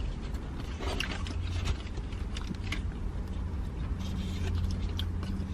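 Steady low rumble of a parked vehicle's engine running, with scattered short rustles and clicks over it.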